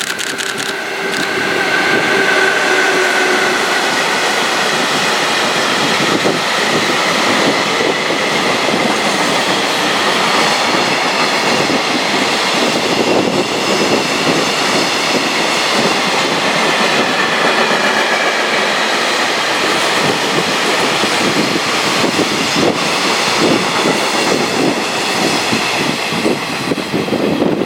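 Container freight train hauled by an EF66 electric locomotive running through a station at speed: a loud, steady rolling noise of wagon wheels on the rails, with clickety-clack over the rail joints.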